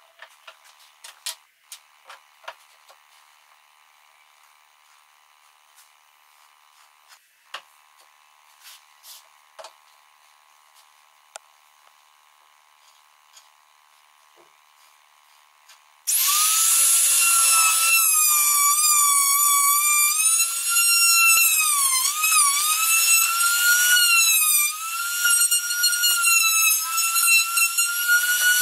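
Light wooden taps and knocks as timber parts are handled, then about halfway through a compact trim router starts with a loud high-pitched whine, its pitch dipping and wavering as it cuts into a wooden table leg.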